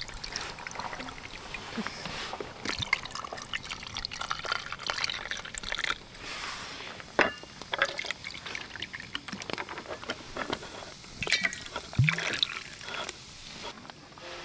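Drinks being poured over ice in camp cups: a dark fruit syrup from a glass bottle, then lemon-lime soda (Chilsung Cider) from a plastic bottle to fill them, with ice clinking. A sharp knock comes near the end.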